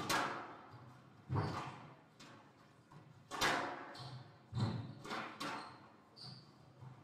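Squash rally: the ball is struck and smacks off the court walls every second or two, each sharp hit echoing round the enclosed court.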